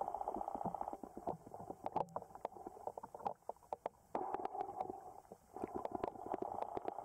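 Underwater noise picked up by the camera: a steady, fast-pulsing buzz that breaks off briefly a few times, with scattered sharp clicks and ticks.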